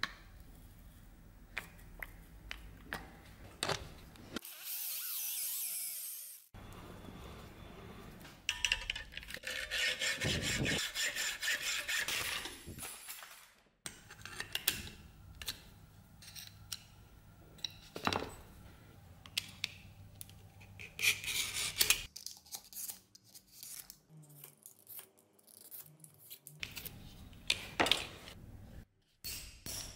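Hand-tool work at a workbench: a couple of long spells of rasping cutting strokes, the longest about 9 to 13 seconds in, with clicks and taps of metal tools picked up and set down between them.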